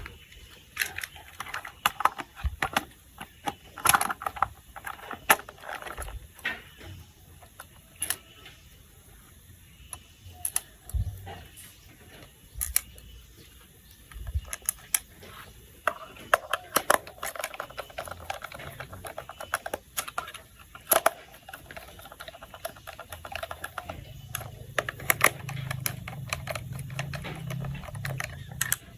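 Hard plastic toy parts clicking, tapping and snapping together as a toy train set is handled and assembled, with a steady buzz joining in about halfway through.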